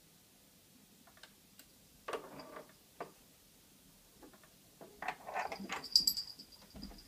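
Clicking and clattering of a SureFlap cat flap as a cat works it: a few sharp clicks early on, then a busier run of clicks and knocks from about five seconds in.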